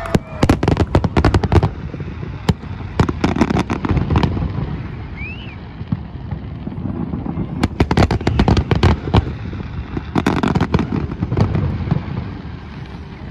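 Aerial fireworks shells bursting in rapid volleys of sharp bangs, in several clusters with a longer lull in the middle, over a continuous low rumble.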